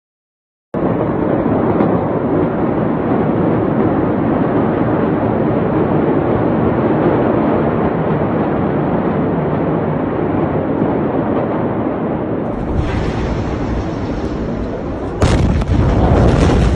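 A steady rushing noise that deepens into a rumble, then, near the end, a sudden very loud blast followed by heavy low rumbling: the shock wave of the Beirut port ammonium nitrate explosion reaching the microphone.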